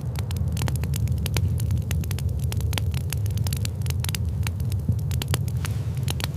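Wood fire crackling, with many sharp irregular pops over a steady low rumble.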